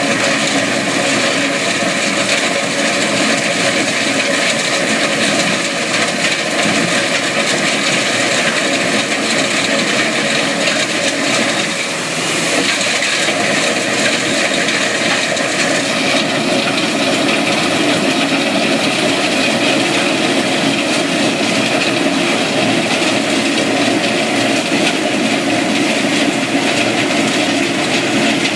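Takeuchi TL12R2 compact track loader working with a Simex PL 450 planer attachment: a loud, continuous machine din, with a brief dip about twelve seconds in.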